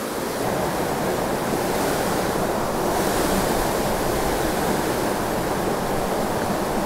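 Stream water rushing steadily through a narrow rock chute and churning into the pool below.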